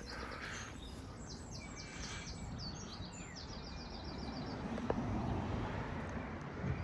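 A small songbird singing quick runs of short, repeated high notes during the first half, over a steady low rumble of outdoor background noise.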